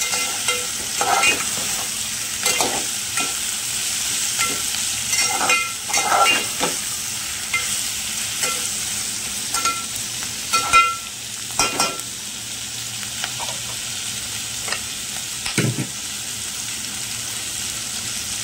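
Onions and green capsicum frying in an aluminium pot with a steady sizzle, while a metal spatula scrapes and clinks against the pot in short, irregular strokes as they are stirred. The strokes come often for about twelve seconds, then only now and then, with one duller knock near the end.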